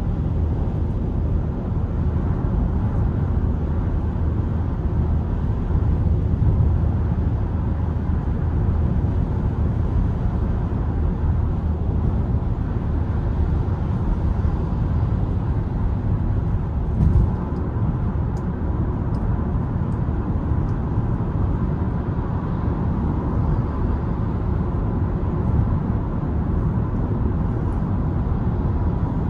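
Steady in-cabin noise of a 2023 Mitsubishi Xpander cruising at highway speed: low road and tyre drone with engine hum, and one short thump about seventeen seconds in.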